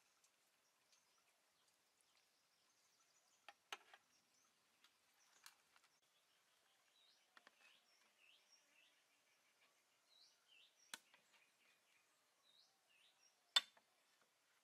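Faint birds chirping, short calls repeated now and then, with a few sharp knocks, the loudest near the end, as dishes are set down on a bamboo slat table.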